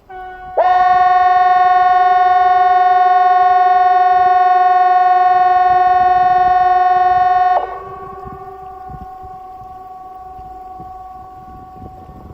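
Outdoor civil-defence warning siren, model CA 370, sounding during a scheduled siren test. It rises sharply into one steady tone about half a second in, holds for about seven seconds, then cuts off. A fainter steady tone carries on after it.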